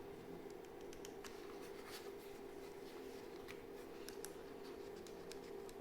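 Faint handling noise: scattered small clicks and rustles of hands working with small plastic camera parts and packaging, over a steady low hum.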